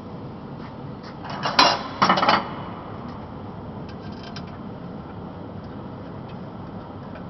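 Metal parts of a pipe-bending machine clinking and clanking as they are handled, with a short burst of sharp clanks between one and two and a half seconds in and a few light ticks later, over a steady hiss.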